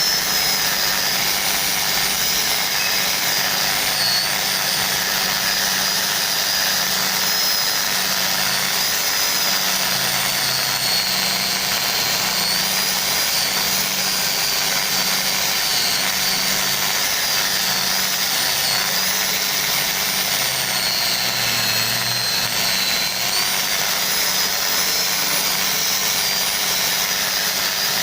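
High-speed electric power tool motor running steadily with a high whine that wavers and dips slightly now and then, as when it is pressed into work.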